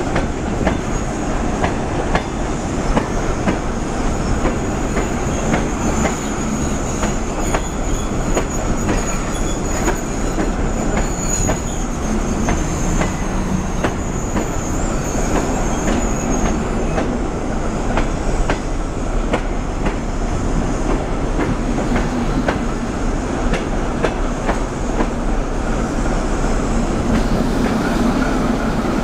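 Double-decker passenger coaches of a departing train rolling past at low speed, their wheels clicking irregularly over rail joints. A thin, high wheel squeal rides over the rolling noise from about six seconds in until about seventeen seconds in.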